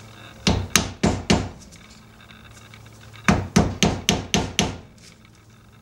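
Rubber mallet striking a flat screwdriver set against the centre of a rear brake-drum hub, hammering it in to work the hub's dust cap loose. Four sharp blows, a short pause, then six quicker blows.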